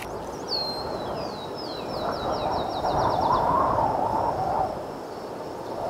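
Electronic logo sound effect: a high whine sweeps in and pulses in quick falling steps, about four a second, over a whooshing swell, then thins to a held high tone.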